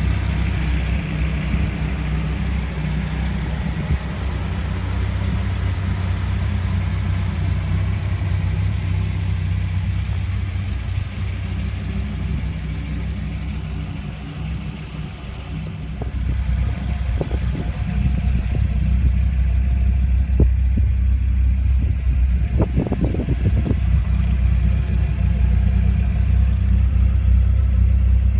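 Dodge Viper SRT10's 8.3-litre V10 idling steadily, getting louder about halfway through, with a few light knocks in the second half.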